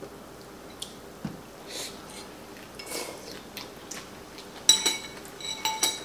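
People eating from bowls at a table: soft chewing and slurping noises, then several sharp, ringing clinks of utensils against dishes near the end.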